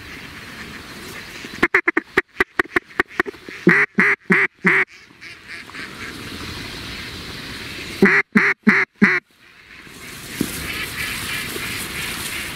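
Mallard quacks: a quick run of short quacks about two seconds in, then two loud runs of four evenly spaced quacks, one near four seconds and one near eight. From about ten seconds a steadier, busier din of a large flock of ducks takes over.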